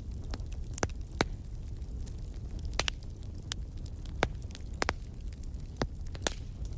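Wood fire crackling in a fireplace: irregular sharp pops and snaps, about a dozen, over a steady low rumble of the burning.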